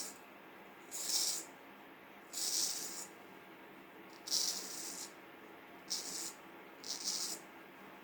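Vintage Norton straight razor shaving a week-old beard: five short scraping strokes through the stubble, each about half a second long and a second or so apart.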